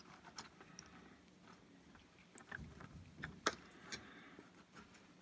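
Faint, scattered small clicks and taps of handling at an electronics workbench, such as test probes and tools touching a circuit board, with one sharper tap about three and a half seconds in.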